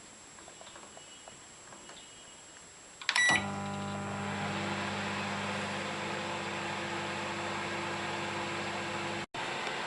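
Microwave oven being started: a few faint clicks, then about three seconds in a short beep and the oven starts running with a steady hum. The hum cuts out for an instant near the end.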